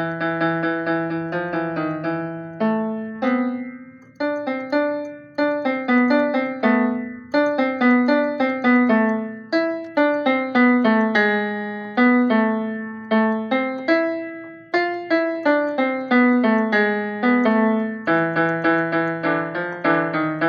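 A piano melody: a steady run of struck notes, each fading after it is hit, over a lower note held at the start and again near the end.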